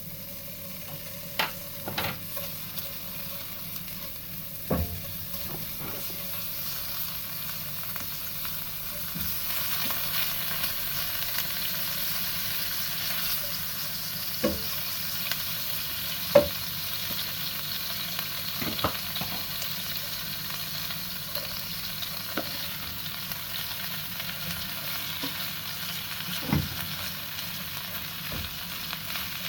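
Food frying and sizzling in a pan, with a steady hiss that grows louder about nine seconds in. Scattered sharp knocks come from a utensil stirring against the pan.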